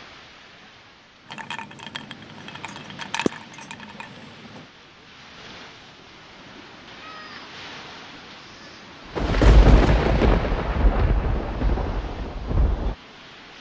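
Thunder rumbling loudly for about four seconds, starting suddenly and cutting off abruptly. Earlier, a few seconds of crackling clicks.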